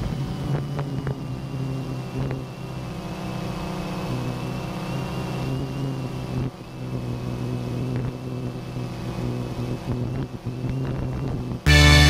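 Quadcopter drone's motors and propellers whirring steadily, with a thin high whine, as picked up by the camera slung beneath it. Music cuts in near the end.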